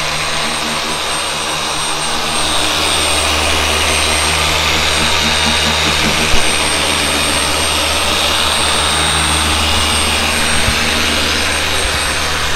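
Handheld electric orbital polisher running steadily, its foam pad working compound into a car's single-stage paint. A single sharp tap sounds about six seconds in.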